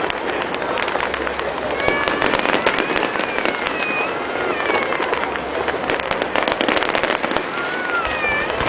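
Fireworks display: a dense, continuous crackling of many small bursts. A few wavering high tones sound over it about two seconds in and again near the end.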